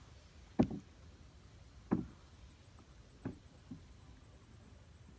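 Four dull wooden knocks on the hull of a small rowed boat, spaced about a second and a half apart, the first the loudest and the last a soft one just after the third.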